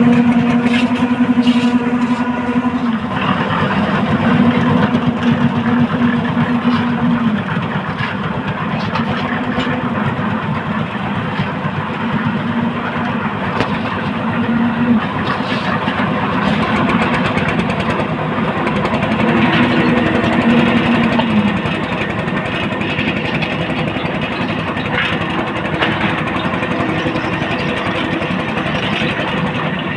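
Concrete mixer's engine running steadily under a constant dense clatter, with a low drone that swells and eases every few seconds.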